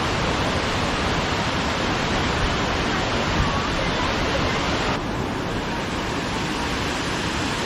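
Rushing water of a mountain creek's waterfalls: a steady, even rush. About five seconds in it changes abruptly to a slightly duller rush.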